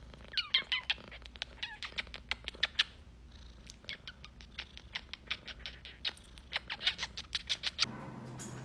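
Rapid, irregular kissing smacks as a woman kisses a cat over and over, with a short falling call from the cat in the first second.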